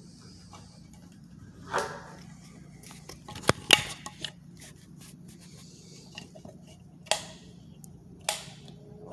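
A run of sharp clicks and knocks from handling hard objects, the loudest two close together about three and a half seconds in and single ones near the end, over a low steady hum.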